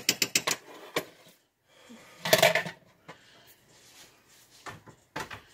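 Metal clinks and knocks as pumpkin puree is emptied from a tin can into the soup pot: a quick run of taps at the start, a louder clank about two seconds in, and a few more taps near the end.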